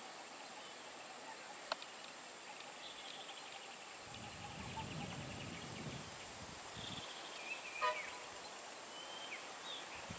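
Outdoor forest ambience: a steady high-pitched insect drone, with a few short bird chirps and whistles mostly in the second half, a single click about two seconds in, and a faint low rumble in the middle.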